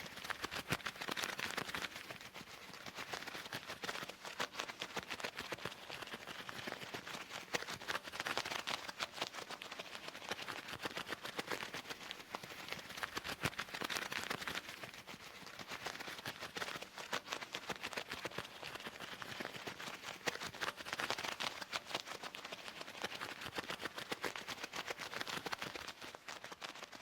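Loose leather gloves being rubbed and handled: a dense, crackly rustle of many small clicks that swells and eases in waves about every six or seven seconds.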